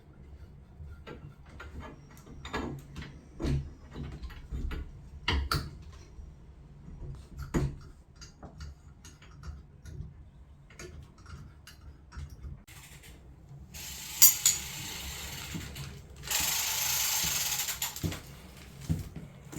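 Metal tools and fittings clicking and knocking irregularly during plumbing work, with ratchet-like clicks. About two-thirds of the way through comes a steady hiss lasting a few seconds, then a louder hiss of about two seconds.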